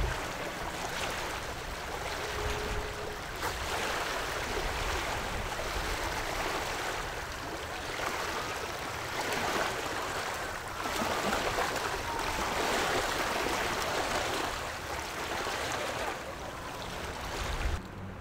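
Ocean surf washing onto the shore: a steady rush of water that swells and eases every few seconds.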